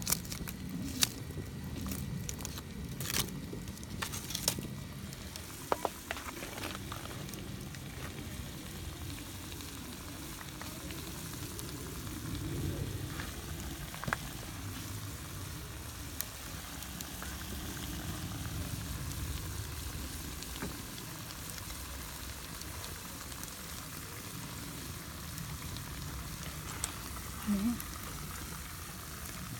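Green beans frying in a pan over a wood fire, a steady sizzle throughout, with several sharp clicks in the first few seconds.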